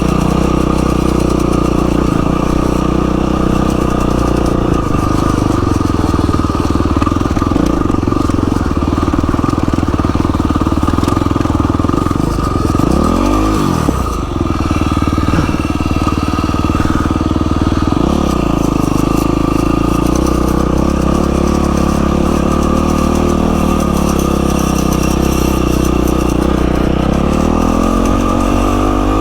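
A 2012 Yamaha WR450F's single-cylinder four-stroke engine running steadily on a trail ride. It revs up and drops back quickly about halfway through, blips again a few seconds later, and the revs climb once more near the end.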